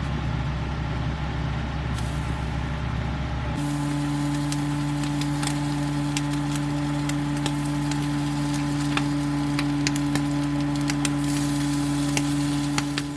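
A steady mechanical hum with scattered crackling ticks; about three and a half seconds in, the hum shifts to a higher, steadier tone.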